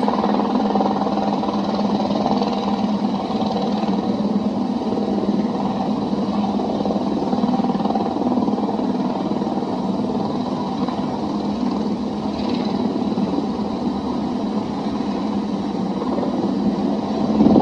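Aircraft engines running at an airfield, a continuous steady mechanical drone from a helicopter and a light propeller plane, with no distinct impacts.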